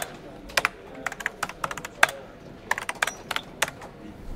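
Typing sound effect: quick, irregular key clicks in small clusters, keyed to the title text appearing letter by letter. The clicks stop shortly before the end.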